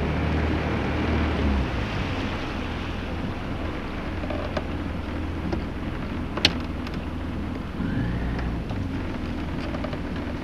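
Jet ski (personal watercraft) engine running steadily under way, with water hissing and splashing along the hull. The deepest part of the engine hum eases about two seconds in, and there is one sharp tick about six seconds in.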